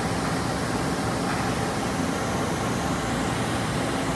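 Mori Seiki ZT1500YB CNC lathe running a boring cut: a steady mix of spindle, cutting and coolant noise with no change, heard through the machine's enclosure.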